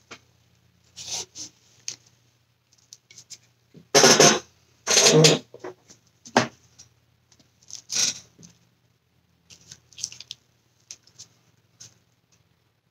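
Handling noise on a work table: irregular scrapes, rustles and small clicks as a resin-coated coaster and cups are moved about by gloved hands, with two louder scrapes about four and five seconds in.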